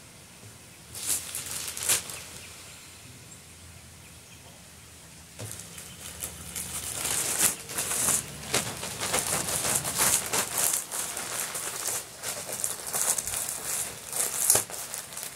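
Plastic packaging crinkling and rustling as cloth dish towels are handled and bagged: a short burst about a second in, then almost continuous crinkling from about five seconds in.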